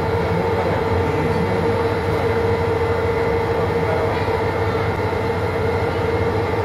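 Sightseeing boat's engine running steadily, an even drone with a constant hum, heard from inside the passenger cabin.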